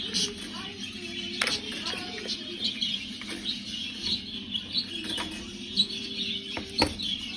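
Budgerigars chirping and chattering in quick short calls, with a few sharp clicks.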